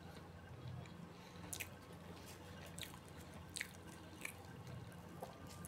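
Faint chewing with soft wet mouth clicks and lip smacks, about one every half second to second, from a mouthful of samosa with its spiced potato filling, over a low steady hum.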